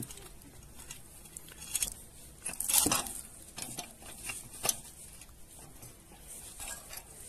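Scattered light metal clicks and knocks as locking pins are fitted into freshly drilled holes in a rotary tiller's tine axle, with a louder cluster of knocks about three seconds in.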